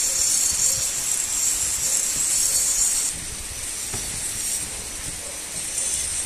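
Heavy rain falling in a steady high hiss, quieter from about three seconds in.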